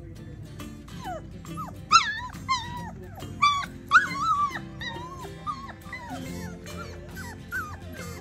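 Four-week-old Bernedoodle puppies whining and yipping, a run of short high-pitched whimpers that mostly fall in pitch, loudest about two and four seconds in.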